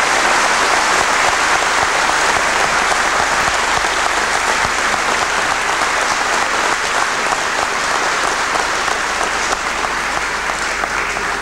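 Audience applauding: a dense, steady clapping of many hands that begins to die down near the end.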